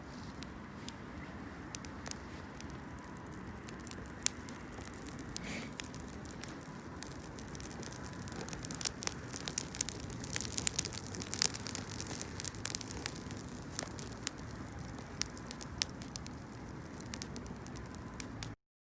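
Wood campfire crackling, with sharp pops over a low steady background noise; the pops come thickest about halfway through, and the sound cuts off suddenly near the end.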